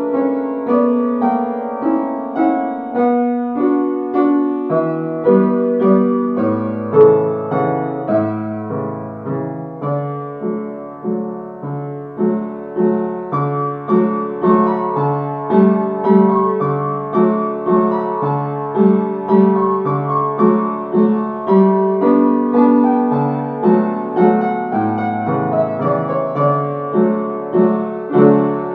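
Upright piano playing a slow, lilting Cefalonian song melody over left-hand chords, with a steady run of struck notes.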